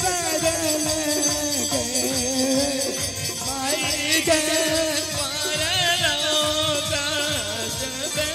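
A man sings a devotional folk song with a wavering, ornamented voice, accompanied by a harmonium and a dholak drum keeping a steady beat.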